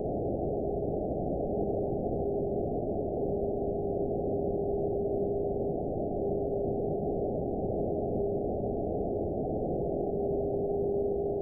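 Shortwave-style receiver hiss from an RTL-SDR, band-limited to below about 1 kHz, with a steady tone near 400 Hz that swells and fades. The tone is the 49.75 MHz video carrier of a distant St. Petersburg TV transmitter, heard via meteor scatter and ionospheric propagation.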